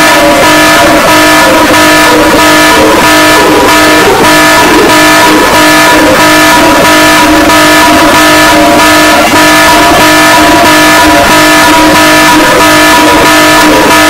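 Loud electronic emergency-alert alarm: a steady chord of several held tones sounding together, with a rhythmic pulsing underneath.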